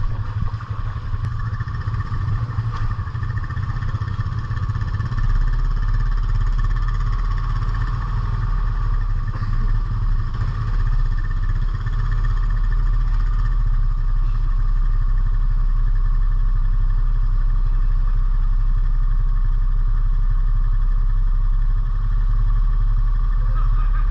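ATV engine running at a steady pitch under way, getting louder about five seconds in and then holding steady.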